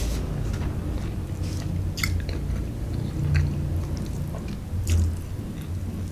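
A person chewing a mouthful of fried rice vermicelli close to the microphone, with sharp wet mouth clicks and smacks about two, three and five seconds in.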